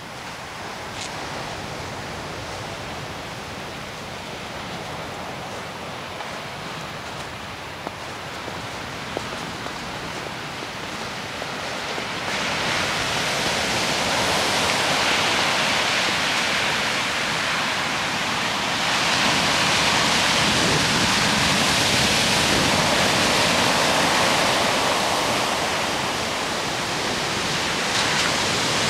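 Rough ocean surf breaking on a beach: a steady rushing that grows louder about twelve seconds in and again a few seconds later.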